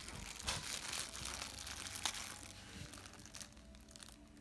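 Clear cellophane wrapping on a Halloween treat bag crinkling as it is handled and pulled at, with scattered sharp crackles, growing quieter near the end.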